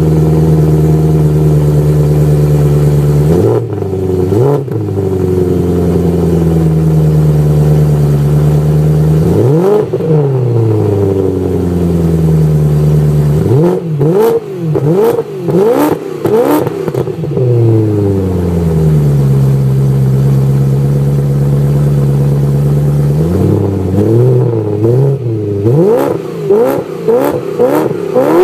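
2008 BMW E93 M3's 4.0-litre V8 through an Active Autowerke Signature axle-back exhaust, on a cold start. It runs at a raised idle that slowly settles lower and is blipped with short throttle revs: single blips a few seconds in and about ten seconds in, a quick cluster in the middle, and a rapid string of revs near the end.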